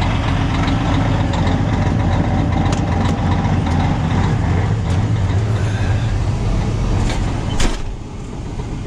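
Old Peterbilt semi truck's diesel engine idling while it warms up. The owner says it runs a little rough when cold. A few clicks come from the cab door being opened, then the door shuts with a bang near the end, and after that the engine is heard muffled from inside the cab.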